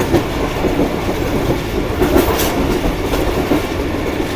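Moving passenger train heard from on board: a steady rumble of the coach running at speed, with a few brief clicks of wheels on rail joints about two seconds in.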